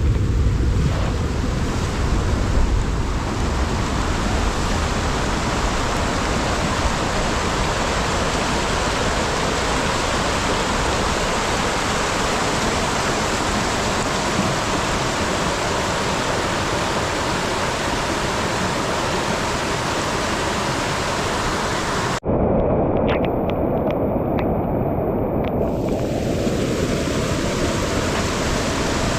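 Loud, steady rush of water. It breaks off for an instant about two-thirds of the way through and comes back slightly duller, with a few sharp clicks over the next few seconds.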